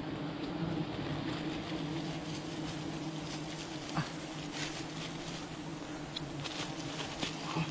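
Honeybees buzzing steadily around an exposed honeycomb, a continuous low hum, with a few light clicks and a sharper tick about four seconds in.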